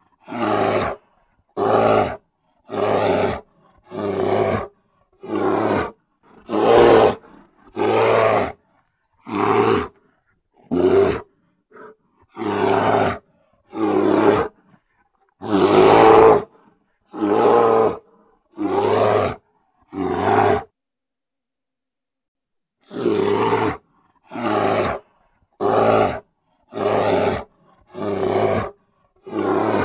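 Grizzly bear roaring in short, repeated bursts of under a second each, about one a second. About halfway through comes one longer, louder roar, and about two-thirds of the way through there is a pause of some two seconds before the roars resume.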